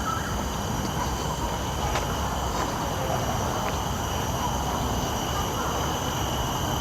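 Steady low rumble of road traffic, with faint steady high-pitched tones over it.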